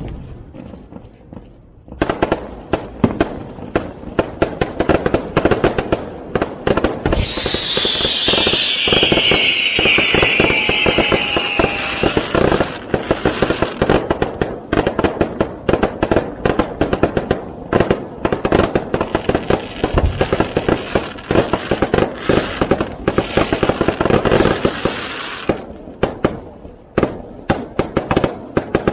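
Aerial fireworks going off in rapid succession. A dense run of crackling and banging bursts starts about two seconds in and keeps going, with a loud whistle that falls in pitch over several seconds partway through.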